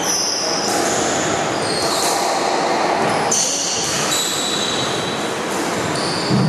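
Squash rally: court shoes squeak on the wooden floor in a string of short, high-pitched squeals as the players change direction. The ball is struck now and then with a sharp knock.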